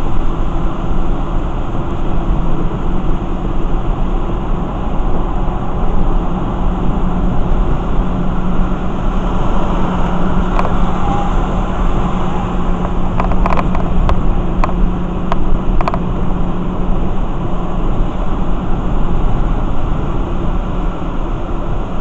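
Car driving on a rain-soaked freeway, heard from inside the cabin: a steady wash of tyre and road noise on wet pavement under a low engine hum, with a few short sharp clicks about halfway through.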